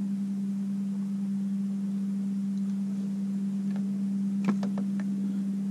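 A steady low hum holding one pitch, with a few faint sharp clicks about four and a half seconds in.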